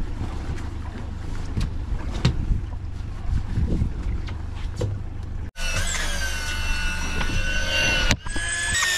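Boat engine idling low under wind noise, with small clicks and knocks from hands handling a baited hook and leader. About five and a half seconds in, the sound cuts abruptly to a high steady whine of several held pitches, which shift up and down in steps after a second cut near the end.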